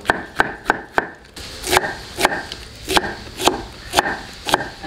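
A broad-bladed kitchen knife shredding cabbage on a wooden chopping board: sharp knocks of the blade on the wood, about two a second, with a brief pause about a second in.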